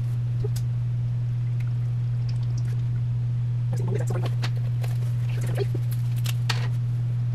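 Plastic quart oil bottles being handled at an engine's oil filler: light plastic knocks and crinkling, busiest about four seconds in and again a little later as an emptied bottle is swapped for a full one. A steady low hum runs underneath and is the loudest sound.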